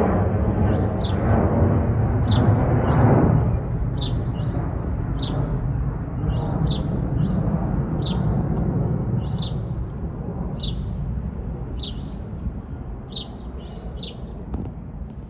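Jet rumble of a Boeing 737-800's CFM56-7B engines as the airliner passes overhead and recedes, dropping about three seconds in and then fading away. From about four seconds on, a bird chirps over and over, about once or twice a second, over the fading rumble.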